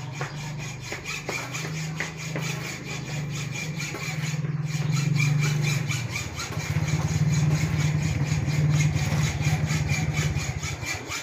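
Electric metalworking tool running continuously on a tubular steel gate, a steady low hum with a crackling hiss over it, stopping abruptly at the end.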